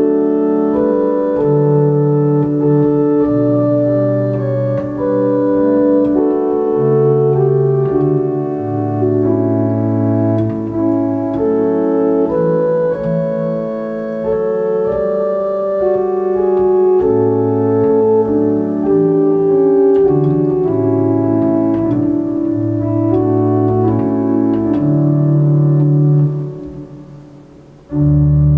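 Johannus digital organ playing a slow piece in sustained, held chords over a moving bass line. Near the end the chord is released and dies away, then a new chord sounds just at the close.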